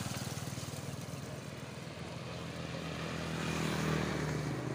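A motor vehicle engine running steadily with an even low pulse, getting louder about three to four seconds in.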